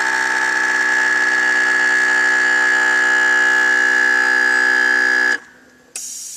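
A custom motorcycle's air ride suspension compressor running with a loud, steady buzz, cutting off sharply about five seconds in. A hiss of air follows near the end.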